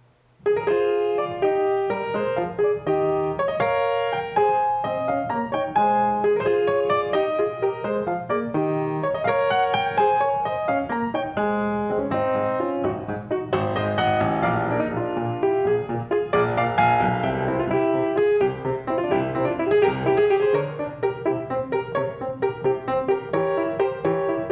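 Piano playing a busy passage of quick notes and chords, starting about half a second in.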